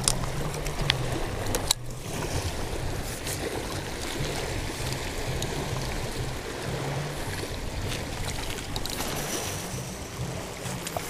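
Ocean surf washing on the shore with wind buffeting the microphone, steady throughout, with a few sharp clicks in the first two seconds.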